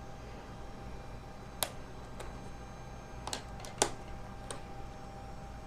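About five small sharp clicks and taps, spread unevenly over a few seconds, from small tools and the phone's plastic parts being handled during disassembly, over a faint steady hum.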